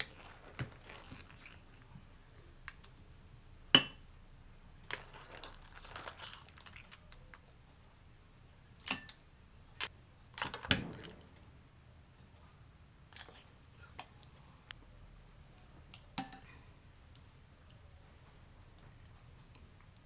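Scattered clinks and clicks of a ceramic ladle and utensils against ceramic bowls as clam tofu stew is ladled out and served, with a few soft sloshes of broth; the sharpest clink comes about four seconds in.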